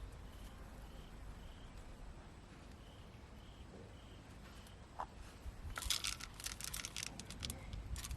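Faint insect chirps repeating about twice a second, then from about six seconds in a run of sharp crackling, rustling clicks.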